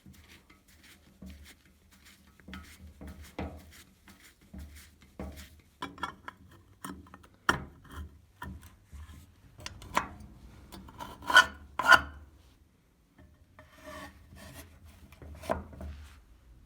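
Irregular scraping and rubbing with scattered clicks and knocks, from the restored grater's parts being worked by hand. Two sharper knocks come a little past the middle.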